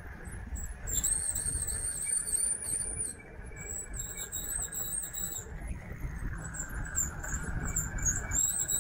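Wind rumbling on the microphone while riding an electric bike, with a high-pitched squeal coming and going in stretches of a second or two.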